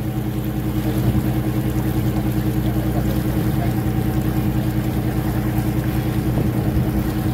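Tour boat's engine running steadily under way, a constant low drone.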